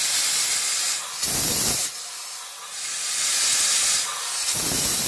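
Steam hissing from a Donkin marine steam steering engine as it is worked by its small hand wheel. The hiss swells and fades, with two louder, deeper gusts of steam about a second in and near the end. The engine's worn piston valve lets a lot of steam leak past it.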